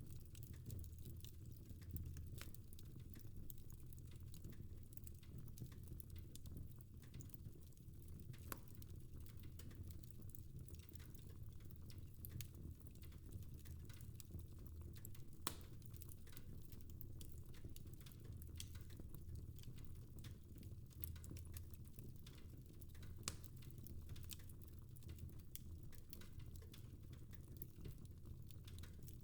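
Fire crackling in a fireplace: a faint, steady low rumble of flames with irregular sharp pops and snaps, a few of them louder.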